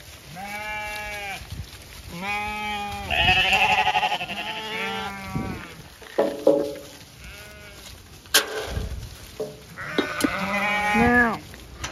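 Zwartbles sheep bleating: a run of separate calls from several animals, some overlapping, with a couple of sharp clicks past the middle.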